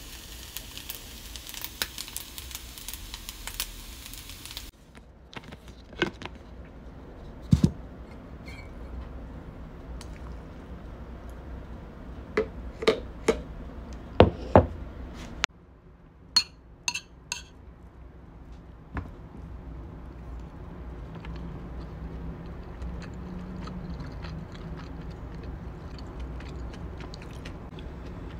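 Kimchi fried rice sizzling in a frying pan for the first few seconds, cutting off abruptly. Then scattered clinks and knocks of a drinking glass, a fork and dishes, with a few louder knocks and some high clinks.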